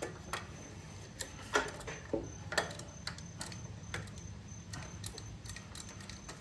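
Scattered light clicks and taps at irregular intervals from hands handling a wiring connector and a roll of tape at close range, over a low steady hum.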